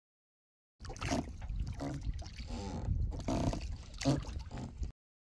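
Water sounds from a small boat on open water, with a heavy wind rumble on the microphone and a few faint, indistinct voice-like traces. The sound cuts in suddenly about a second in and cuts off suddenly near the end.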